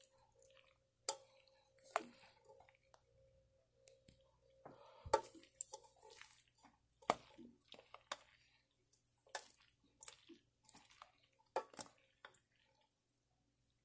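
A plastic spoon stirring cooked macaroni, peas and carrots in a stainless steel pot: faint wet squishing with irregular taps and scrapes of the spoon against the pot.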